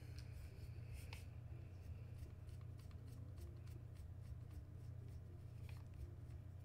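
Faint scattered clicks and light scraping of a screwdriver working on screws in an airsoft rifle, over a steady low hum.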